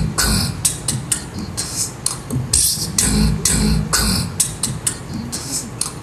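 Drum-beat intro to a song on a concert stage: a rhythm of deep kick thumps and short hissing cymbal-like hits, with no singing yet.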